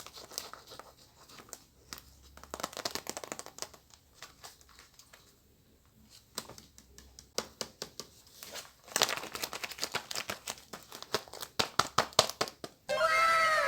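Paper packaging of a handmade paper blind bag crinkling, rustling and tearing as it is unwrapped by hand, in irregular clusters of crackles that are densest in the second half. Near the end a series of falling pitched tones, like a sound effect, starts abruptly.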